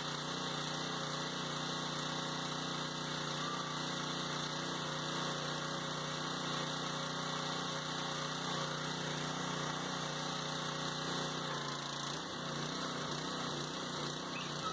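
Simpson MS61043 pressure washer's 212 cc single-cylinder gas engine running steadily under load while the wand sprays soap through the multi-use nozzle. Its steady note wavers about twelve seconds in.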